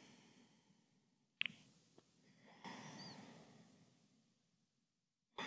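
Near silence with a woman's soft breathing: a brief mouth click about a second and a half in, a faint breath about halfway through, and a louder audible breath near the end.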